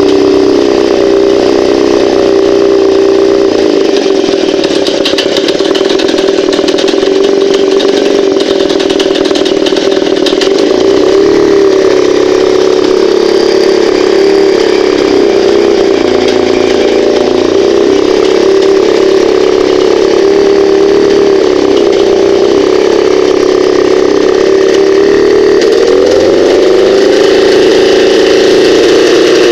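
Moskva-M two-stroke outboard motor running steadily with knocking and ringing, which the owner puts down to the flywheel rubbing against the magnetic cores of the ignition coils. The engine speed wavers slightly and picks up a little near the end.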